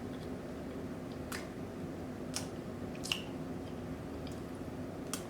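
Close-miked chewing of a mouthful of cornbread: a few sharp, wet mouth clicks and smacks spaced about a second apart, over a steady low background hum.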